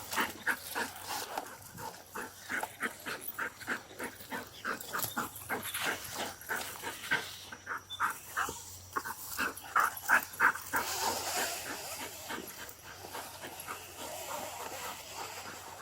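Police tracking dog panting hard, about three quick breaths a second, fading somewhat near the end.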